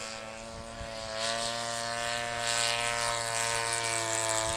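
Radio-controlled model Sopwith Pup's engine running at steady throttle in flight, its pitch sinking slowly, louder from about a second in.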